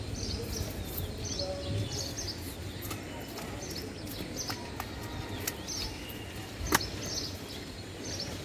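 A large knife scraping scales off a tilapia on a wooden chopping block in short repeated strokes, with one sharp knock about two-thirds of the way through, over steady market background noise.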